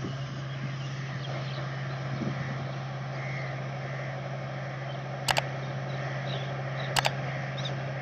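Kubota ARN105 mini combine harvester's engine running with a steady low hum while it unloads paddy grain through its auger. Two sharp clicks come about five and seven seconds in, the click sounds of a subscribe-button animation added over the video.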